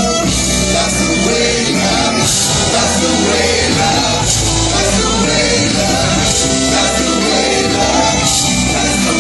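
Live rock band playing with a string section of violins, with singing over the loud, steady music.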